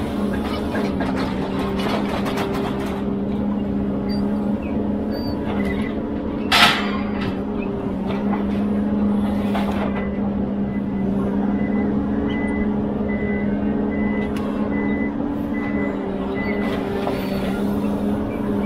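Ponsse Elephant forwarder's diesel engine running steadily, with a short sharp hiss about a third of the way in. Later a reversing alarm beeps steadily for about five seconds.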